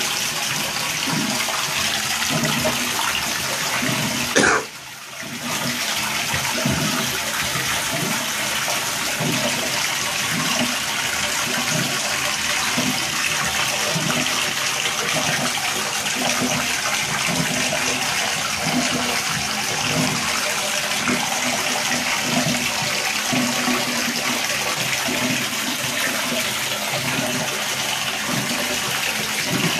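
Water running steadily in a bathtub. It drops away briefly about five seconds in, then carries on.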